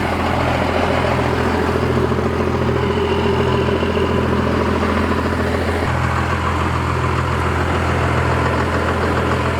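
First-generation Dodge Ram's 5.9-litre Cummins inline-six diesel engine running steadily, with a slight change in its note about six seconds in.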